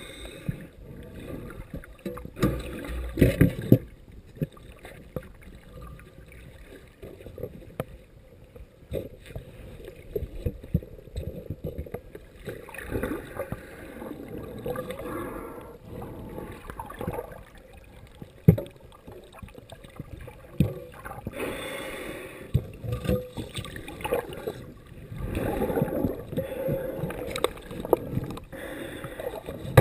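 Underwater ambience: water surging and bubbling, swelling and fading several times, with scattered sharp clicks and knocks.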